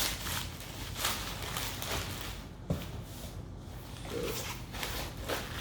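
Packaging rustling and scraping as the turntable's dust cover is unwrapped and handled, with a single sharp knock near the middle.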